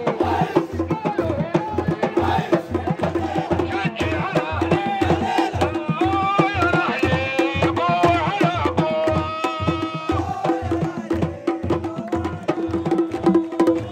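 Football-style supporters' section singing a chant together over a steady, quick beat of hand drums, the singing clearest in the middle stretch.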